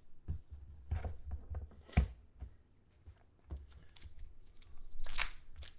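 Trading cards and plastic card cases being handled on a table: scattered taps and clicks, a sharper knock about two seconds in, and a brief rustle near the end.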